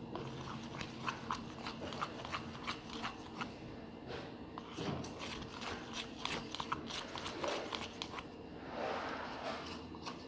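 A spoon stirring thick glue mixed with paint and glitter in a container: irregular sharp clicks and scrapes, several a second.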